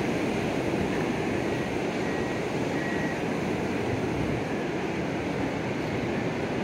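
Steady rush of ocean surf on the beach.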